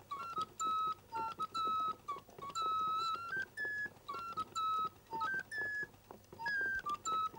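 Background music: a solo flute playing a quick melody of short, high notes that hop up and down.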